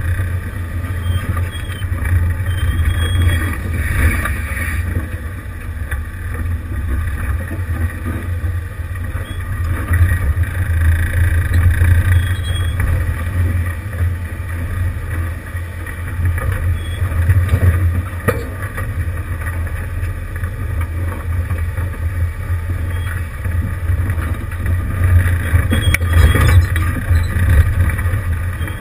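1988 Jeep Wrangler YJ's engine running at low revs while crawling over a rocky trail, a steady low rumble that swells and eases with the throttle, with a few knocks from the vehicle on the rocks.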